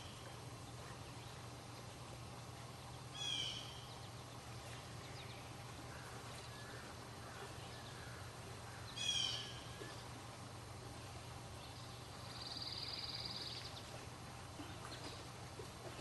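Wild songbirds singing outdoors: a short, quick, descending series of high notes about three seconds in, repeated about nine seconds in, then a buzzy, level trill lasting about a second and a half near twelve seconds in, over a steady low hum.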